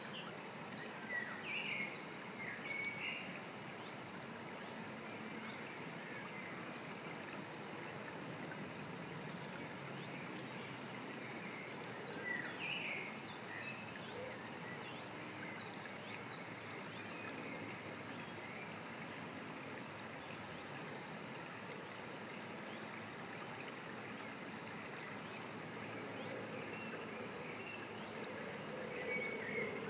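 Shallow stream running steadily over a pebbly bed. Songbirds call now and then: a few calls in the first seconds, a quick series of chirps about twelve seconds in, and more near the end.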